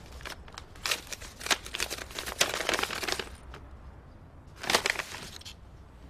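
A paper envelope being torn open and rustled by hand: a run of rips and crinkles from about a second in for a couple of seconds, then another short rustle near the end.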